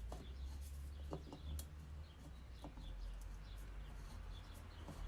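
Small birds chirping repeatedly in the background over a steady low rumble, with a few light clicks from parts being handled.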